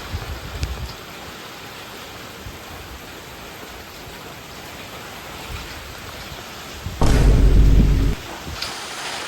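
Hurricane wind and heavy rain, a steady hiss with gusty low buffeting early on. About seven seconds in comes a loud, low, rumbling blast lasting about a second.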